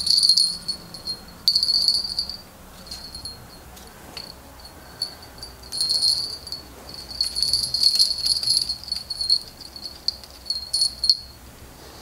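Small fishing bite-alarm bells jingling in irregular spells as they are handled and tied onto a winter fishing tip-up, a high clear ringing with little clinks between.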